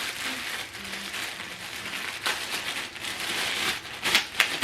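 Plastic packaging bags crinkling and rustling as boxed accessories are unwrapped and handled, with a few sharper clicks near the end.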